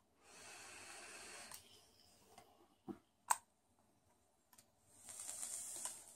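A person breathing vapour from a vape mod: two long, faint breathy hisses, with two sharp clicks in between.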